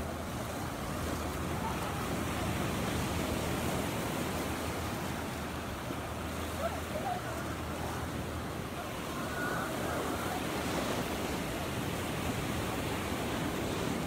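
Surf breaking and washing up a sandy beach: a steady rush of waves, with faint distant voices now and then.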